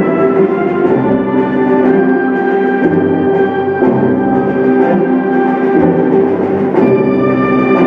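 Instrumental music: sustained chords that shift every second or so, with drum hits, and a sharp hit about seven seconds in.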